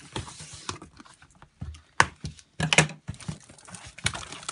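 Plastic mailing bag and cardboard box being opened by hand: rustling and crinkling with a few sharp snaps and cracks, the loudest around two seconds in and just before the three-second mark.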